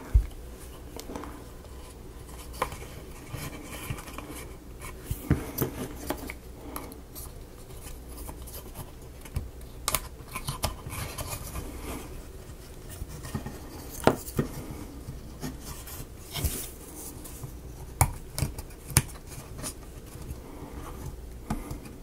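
Small wooden model-kit pieces being handled: scattered sharp clicks and short scrapes of plywood parts as a rubber O-ring is worked onto a part and keeps slipping off.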